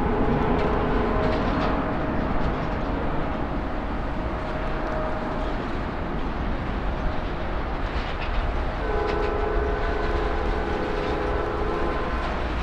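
Jet engines of a twin-engine widebody airliner climbing out after takeoff: a steady, rumbling roar. A humming engine tone comes through over it for a few seconds near the end.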